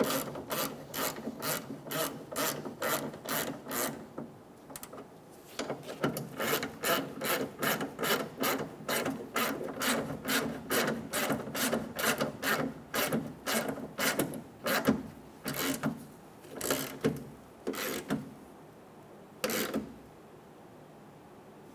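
Hand ratchet wrench clicking as the tailgate latch bolts are snugged down, about three clicks a second. A short pause about four seconds in, then another long run that slows to a few single clicks near the end.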